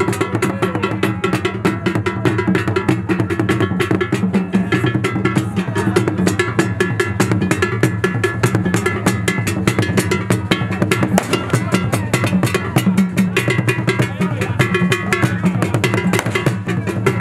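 Traditional drum ensemble playing a fast, dense rhythm, with a struck bell among the drums.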